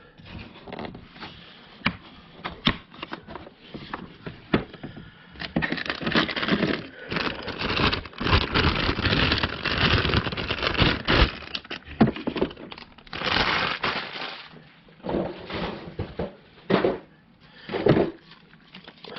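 A blow-molded plastic tool case and the staple gun in it being handled: irregular clicks, knocks and crackly rustling, busiest through the middle.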